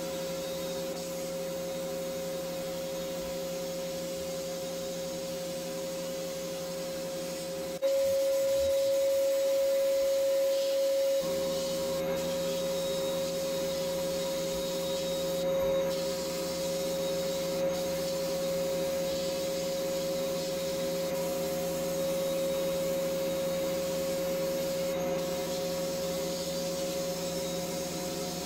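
Sandblast cabinet running: the steady hiss of the blast gun's air and abrasive grit stripping orange paint off a metal model car body, over a steady motor hum. It is louder for a few seconds around eight seconds in.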